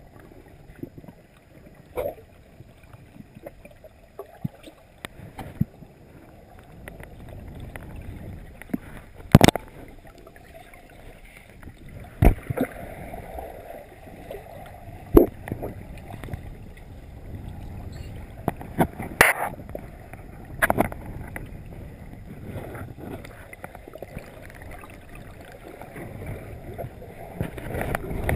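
Underwater sound through a GoPro's waterproof housing in a swimming pool: a muffled, low rumble and swish of water stirred by a swimmer passing overhead, with a sharp knock every few seconds.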